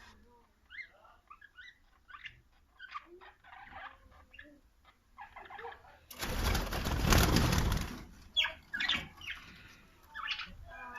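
Lovebirds chirping with short, sharp high calls throughout. About six seconds in, a loud burst of noise lasts about two seconds.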